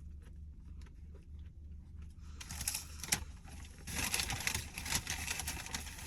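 Paper food wrapper being crinkled and torn open. It begins with a few faint clicks and turns into steady dense crackling with sharp snaps about two seconds in.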